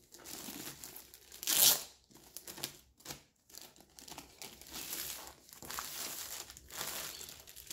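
Clear plastic sleeve crinkling and rustling as a rolled diamond-painting canvas is handled and slid out of it, in irregular bursts with the loudest about a second and a half in.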